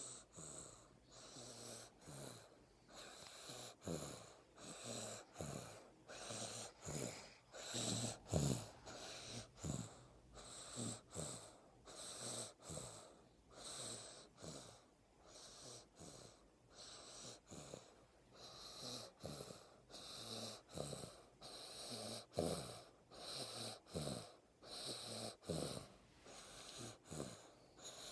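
Faint snoring: short, breathy snores in a quick, uneven rhythm of about one a second, a few of them louder than the rest.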